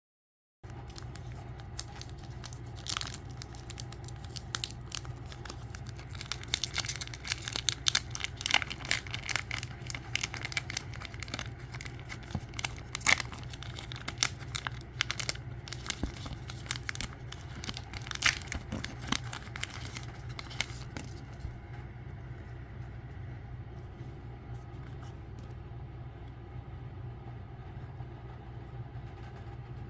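A photo card pack's wrapper being torn open and crinkled by hand: a run of sharp rips and rustles that dies away about two-thirds of the way through, over a steady low hum.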